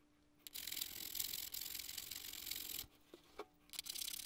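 Hand file scraping across padauk wood in strokes as the bowtie is shaped by hand. One long stretch of filing stops just before three seconds in, and filing resumes about a second later.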